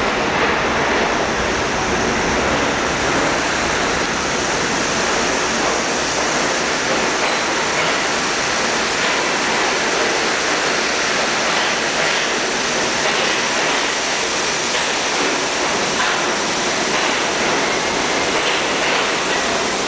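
Steady rushing rail noise of an R32 subway train pulling out of an underground station. Its deep rumble thins after a few seconds, while a loud, even hiss carries on.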